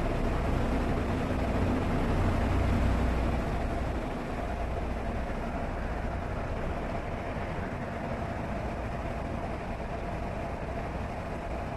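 Tiara 50 Coupe motor yacht's engines running steadily at low speed: a low rumble with a steady hum over a haze of water and wind noise. It is louder while the boat passes under a concrete bridge and drops about four seconds in as the boat comes out into open water.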